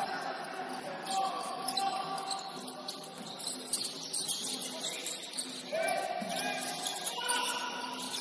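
Basketball bouncing on a court floor amid players' voices and calls.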